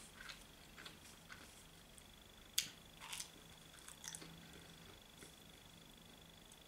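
Quiet eating of a slice of pizza: soft mouth clicks and chewing, with two sharper clicks about two and a half and three seconds in. A faint, steady, high-pitched whine runs underneath.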